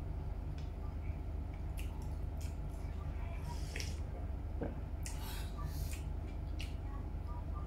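Close-miked eating sounds: wet chewing of meatballs, with slurps of soup broth from a spoon about halfway through and again a little later, and a few small clicks, over a steady low hum.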